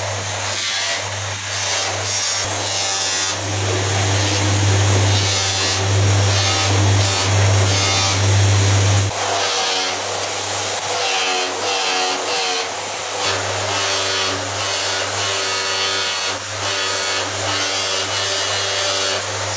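Electric power tool abrading the knife workpiece in repeated rubbing strokes over a steady motor hum; the hum drops out for a few seconds about nine seconds in, then returns.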